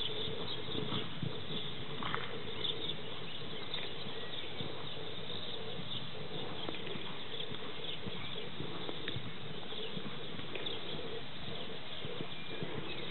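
Soft, faint hoofbeats of a horse cantering on arena sand, under steady background noise.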